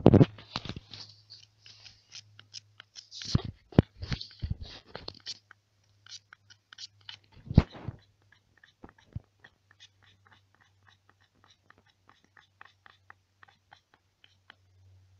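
Knife blade scraping a resin-soaked fatwood stick at a right angle, shaving off fine tinder in short repeated strokes. The strokes are louder in the first half and turn into fainter, quicker scrapes after about eight seconds.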